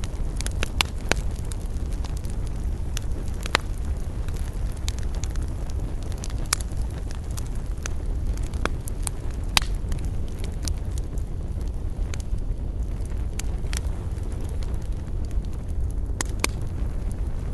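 A wood campfire burning with a steady low rumble and irregular sharp crackles and pops.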